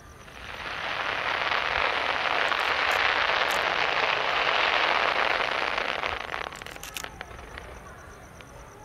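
Fireworks crackling densely and steadily for about six seconds, then breaking into a few separate sharp pops as the crackle dies away.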